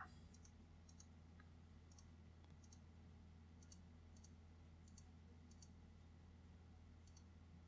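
Faint computer mouse clicks, about a dozen spaced irregularly, as points are placed one by one with a pen tool. Under them is near silence with a steady low hum.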